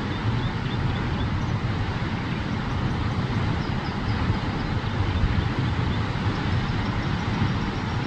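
Huka Falls on the Waikato River: a steady rushing of fast water pouring over the falls, an even noise heaviest in the low end.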